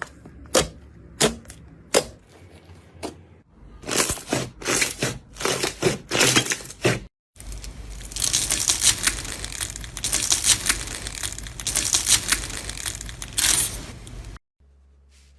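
Crunchy slime being pressed and squeezed by hand, giving crisp crackles and pops: a few single sharp pops first, then a run of louder crunches, then dense, continuous crackling that stops suddenly near the end.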